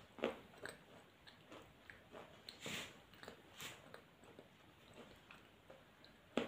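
Mouth crunching and chewing pieces of dry eating clay: irregular sharp crunches a second or so apart, with a longer, louder crunch near the middle and the sharpest one at the very end.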